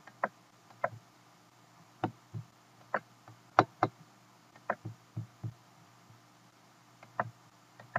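Computer mouse clicking: a dozen or so short, sharp clicks at irregular intervals, some in quick pairs, over a faint steady electrical hum.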